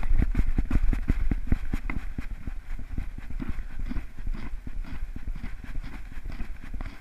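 Rapid, uneven thumps and rustling from a GoPro strapped onto a small dog as it trots about. The sound is the dog's footfalls jolting the camera, with fur and the mount rubbing against the housing. The thumps grow fainter after the first couple of seconds.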